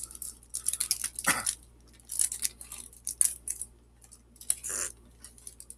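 Foil wrapper of a Pokémon trading card booster pack crinkling and crackling in the hands as it is being worked open, with quick irregular crackles and a louder rustle about a second in and again near the end.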